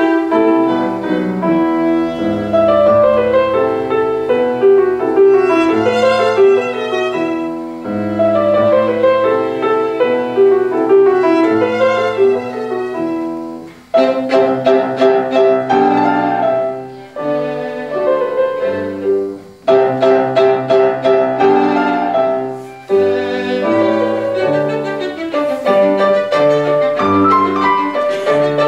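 Violin and grand piano playing a classical sonata together: the bowed violin carries the line over the piano. About halfway through there is a short break, and the music re-enters sharply.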